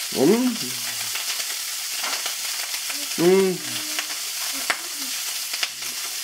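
Sausage frying in a pan: a steady sizzle with small crackles. Over it a man's voice gives two short hums, a brief one about a third of a second in and a louder one a little over three seconds in.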